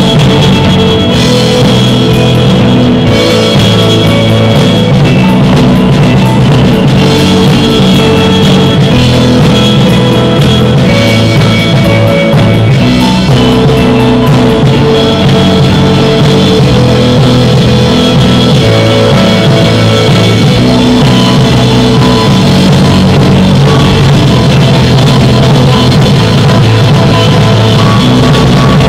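Post-rock band playing loudly: guitars holding long sustained notes over a drum kit.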